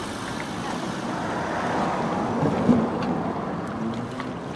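Wind buffeting the microphone, with small waves lapping at the water's edge on a stone slipway. There is a single short thump a little under three seconds in.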